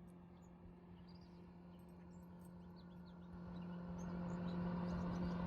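A steady motor hum that swells louder over the last couple of seconds, with small birds chirping.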